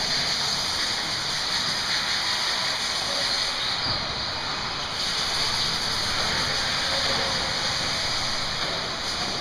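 Radio-controlled 1/10-scale 4x4 cars running on an indoor dirt track: a steady hiss with no clear engine note.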